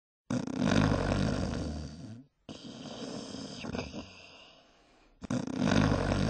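Loud snoring: a rough, heavy snore starting about a third of a second in, a quieter breath after it, and the loud snore again about five seconds in.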